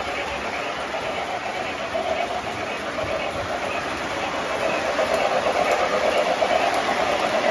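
O gauge model train cars rolling past on their track: a steady rolling rumble and clatter of small metal wheels, a little louder after about five seconds.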